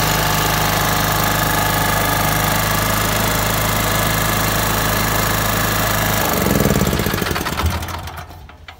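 A 2.8 kW portable generator's engine running steadily. About six seconds in it is switched off, and it runs down and stops over the next two seconds.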